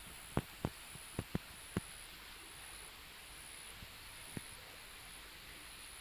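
An insect calling in short, high, even pulses about once a second over a steady hiss, with a few sharp clicks in the first two seconds and one more near the end.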